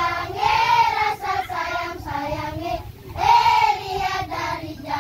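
A group of children singing a song together, with long held notes.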